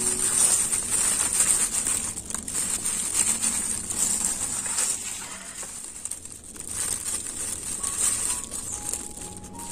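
A plastic food-handling glove crinkling and rustling as pieces of cooked, spiced intestine are picked from a steel plate and pushed onto a bamboo skewer, with small clinks against the plate.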